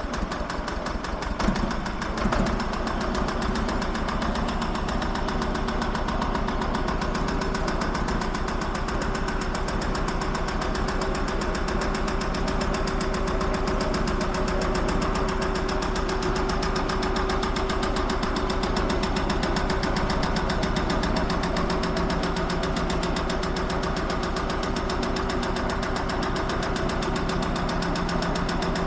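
Small Lamborghini R230 tractor's diesel engine running steadily as the tractor moves off at low speed, with a few louder clunks about two seconds in. It is a tired, hard-worked engine.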